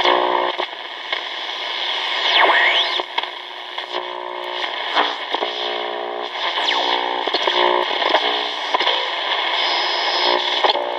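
Hitachi WH-888R portable radio's speaker giving out static hiss, with sliding whistles and several bursts of buzzing tones.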